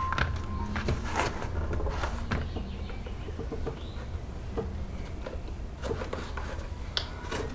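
Leather being worked by hand: scattered scrapes, clicks and short squeaks over a steady low hum.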